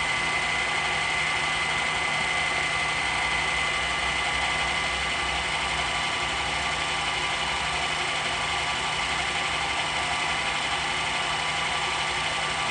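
Arboga Maskiner GM3580 drill press running under power, its motor and gearhead giving a steady hum with a high gear whine that eases a few seconds in.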